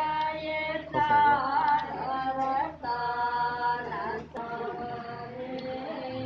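A woman singing a slow melody of long held notes with ornamented turns, in phrases that break about a second in, near three seconds and just past four seconds.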